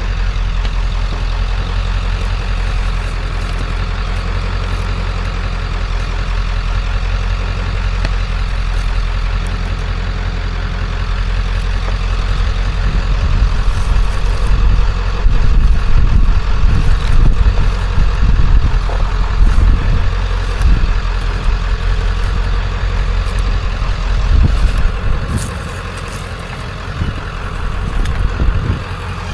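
A motor vehicle's engine running with a steady low rumble, which grows louder and more uneven about halfway through and eases off again near the end.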